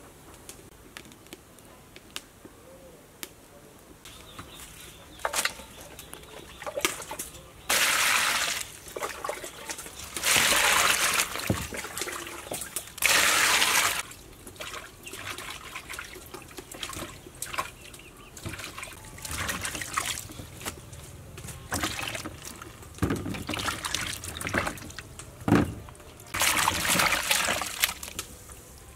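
Water splashing and running in several bursts as oyster mushrooms are rinsed by hand, with small clicks and knocks of handling in between.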